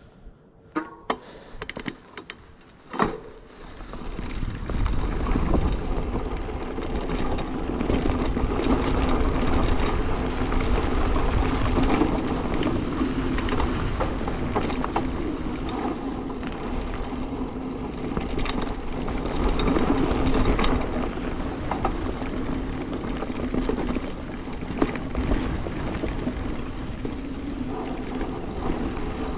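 Mountain bike rolling fast along a dirt forest trail: a steady rumble of the tyres on the ground mixed with wind buffeting the microphone. A few sharp clicks come in the first three seconds before the rumble builds up about four seconds in.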